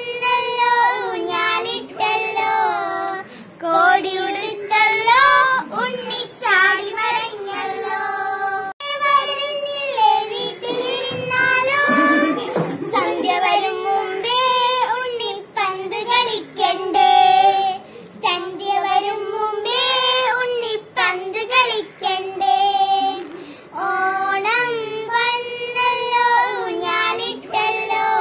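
A child singing a song, with some notes held long.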